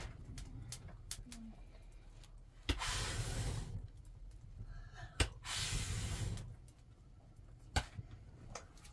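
Two bursts of hissing, each about a second long and each starting with a sharp click, with a single click near the end.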